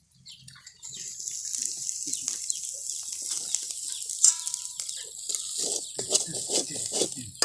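Small fish frying in hot oil in a pan, a steady sizzle with crackles, and a utensil scraping and stirring in the pan near the end.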